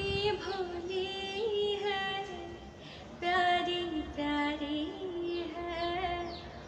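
A woman singing a slow Hindi song solo, holding long, wavering notes between short breaths.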